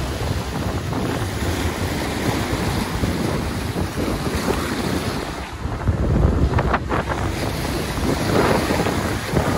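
Wind buffeting the microphone over the rush of churning whitewater in a sportfishing boat's propwash, with the boat's engines rumbling underneath.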